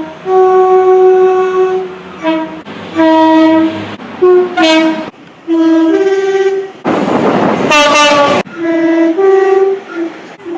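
Train horns sounding in a run of separate blasts from different trains, cut one after another: some single held notes, others two-tone, a lower note followed by a higher one. Partway through, a loud rushing burst with a rising note cuts in for about a second and a half.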